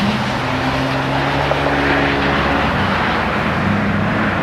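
Jet engines of an approaching Airbus airliner on final approach: a steady drone with a few low humming tones under an even rushing noise.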